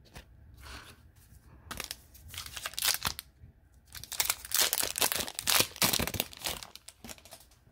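Foil wrapper of a hockey card pack being torn open and crinkled, in two spells of crackling, about two seconds in and again from about four seconds in.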